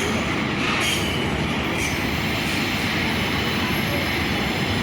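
A train rolling past, a steady, even noise of wheels on rail with no break.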